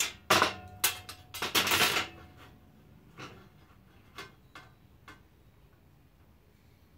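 Sharp knocks and clatters of tools and a workpiece being handled on a workbench: a busy run of hard knocks in the first two seconds, one with a brief scrape, then a few scattered clicks.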